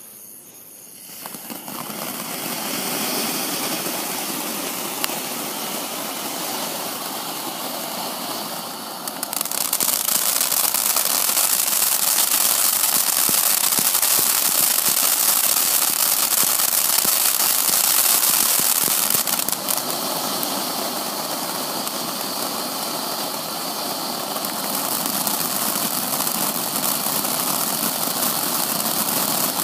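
Cutting Edge Bare Knuckle Fighting Fountain, a ground firework fountain, catching about a second in and then spraying sparks with a steady hiss. It grows louder about nine seconds in, eases a little near twenty seconds, and builds again toward the end.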